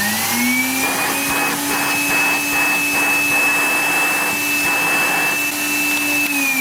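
A bagged vacuum cleaner's motor, running with a full dust bag. It spins up over the first half second, runs with a steady whine, then begins to wind down as it is switched off at the very end.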